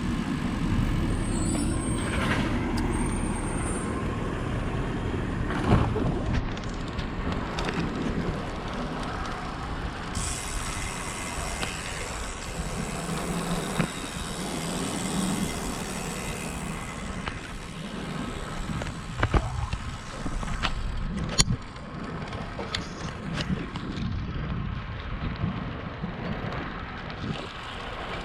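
Steady wind rush and road noise from a road bike riding along, with traffic-like rumble and a few sharp knocks, about six, nineteen and twenty-one seconds in.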